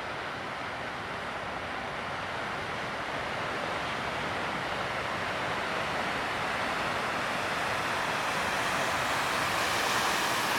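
Steady noise of ocean surf and breaking waves, growing slightly louder toward the end.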